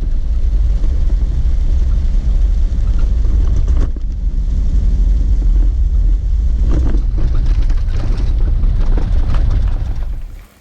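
Jeep Wrangler driving slowly over a rough, potholed dirt road: a steady low engine and road drone with knocks and rattles from the bumps. The sound cuts off suddenly near the end.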